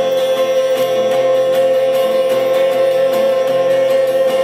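Acoustic guitar music, with one long note held steady for several seconds above the strummed chords.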